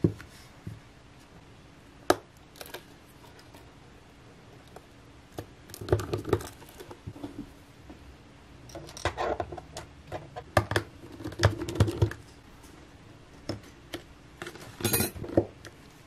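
Metal tweezers and a precision screwdriver clicking and tapping against the parts and aluminium housing of an opened iPad Air, with light handling knocks. The clicks come scattered and irregular, with several close together in the middle and a sharp one near the end.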